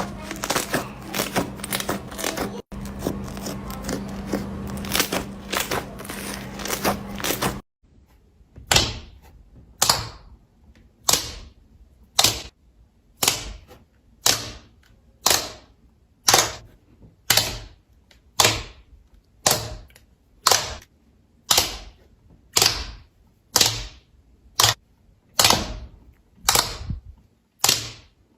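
Slime being worked by hand: dense crackling at first, then after a sudden cut, sharp popping snaps about once a second, each dying away quickly.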